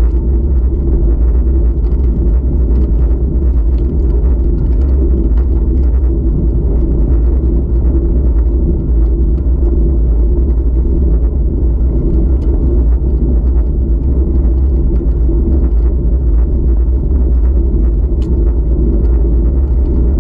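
Steady, loud rumble of wind buffeting the microphone of a camera on a moving road bike, mixed with the hum of the tyres rolling on asphalt, with faint scattered ticks from the road surface.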